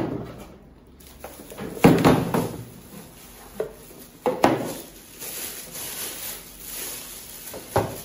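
Plastic wrapping rustling and crinkling as bagged stand-mixer parts are handled, with several sudden knocks as they are set down on a table.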